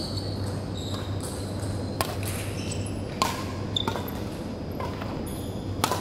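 Badminton rackets striking a shuttlecock in a rally: sharp cracks about two seconds in, a little after three seconds, and again near the end, over a steady low hum.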